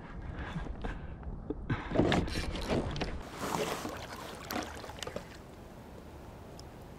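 Water lapping against a kayak hull with a low wind rumble on the microphone, and scattered knocks and scrapes from hands working a bent jigging rod and spinning reel while playing a fish. The rumble cuts off abruptly about three seconds in.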